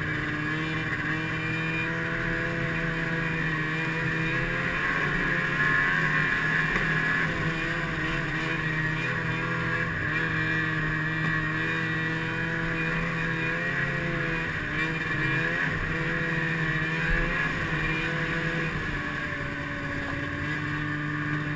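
Snowmobile engine running under way, its pitch rising and falling as the throttle is worked.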